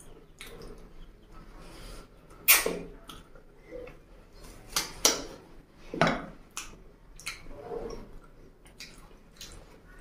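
Close-miked eating sounds: a man chewing and sucking on curried chicken feet, with wet smacking sounds at irregular moments every second or so.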